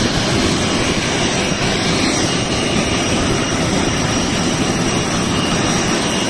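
Jet aircraft engine noise: a loud, steady rushing hum with a faint high whine.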